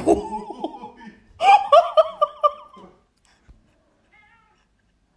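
A person laughing hard and high-pitched in quick pulses, in two fits: one from the start to about a second, then a louder one from about one and a half to three seconds in. A brief knock right at the start.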